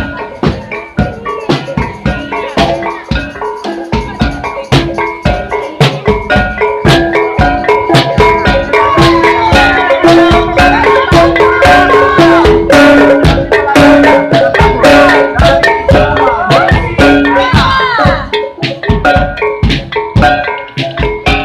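Loud, lively music of drums and tuned percussion playing a fast, busy rhythm under a melody of short notes, with a few sliding tones in the middle.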